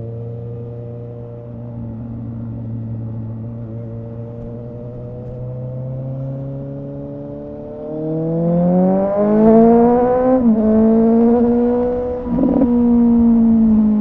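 A 2017 Suzuki GSX-S750's inline-four engine through a Yoshimura R11 exhaust with the dB killer removed. It cruises steadily at moderate revs, then the throttle opens about eight seconds in and it grows louder, the pitch rising. There is a brief dip in revs about ten seconds in, then it holds high revs.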